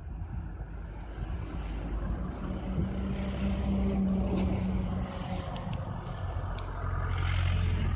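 A distant engine drone, steady and low, growing louder near the end, with a few faint high ticks over it.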